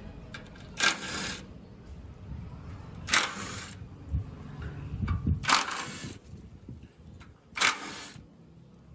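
Four short hissing bursts, each about half a second long and a little over two seconds apart, with faint knocks between them.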